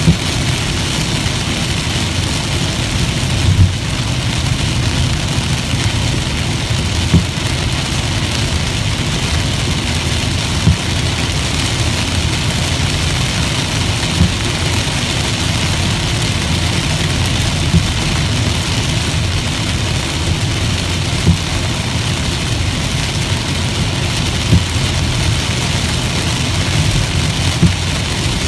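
Heavy rain on a moving car and tyre noise on the wet road, heard from inside the cabin over a steady low engine and road rumble. A short knock comes about every three and a half seconds.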